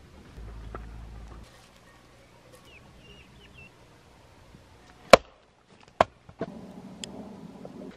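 Two sharp strikes of an axe splitting firewood, about a second apart, the first the louder. A few brief bird chirps come shortly before them.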